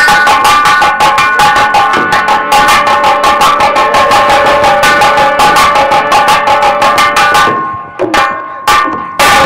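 Nautanki stage-band music: fast, driving drum strokes over sustained held instrument notes. The ensemble stops about seven and a half seconds in, and a few separate drum strokes follow near the end.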